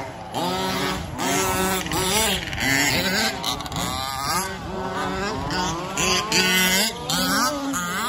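Several remote-control 4WD racing buggies' motors whining, overlapping and rising and falling in pitch again and again as the cars accelerate and brake around the track.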